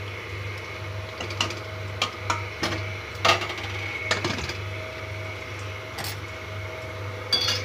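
A ladle and other metal utensils clinking and knocking against an aluminium pressure cooker and a steel pan, in scattered single strikes, the loudest a little over three seconds in, over a steady low hum.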